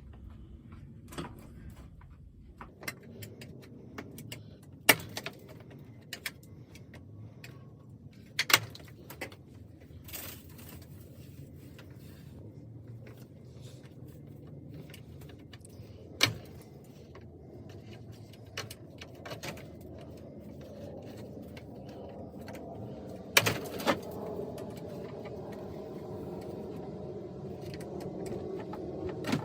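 Scattered sharp clicks and knocks, as of hand tools and parts being handled during work on a vehicle, over a steady low background rumble; the loudest knocks come about five, eight and sixteen seconds in, with a double knock near the end.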